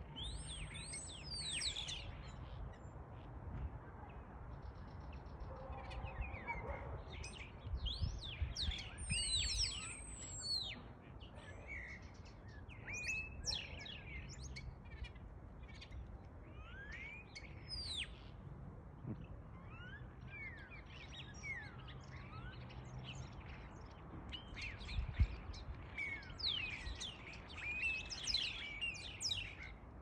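A flock of starlings perched in a tree, chattering with many overlapping whistles, chirps and sliding calls, over a low background rumble.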